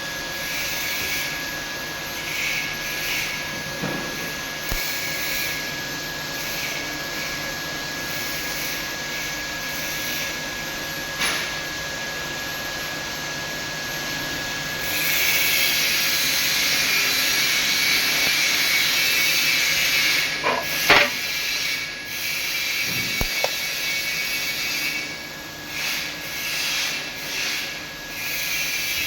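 Steady hiss of a TIG welding arc. It grows louder and brighter about halfway through for several seconds, and a couple of sharp clicks come through.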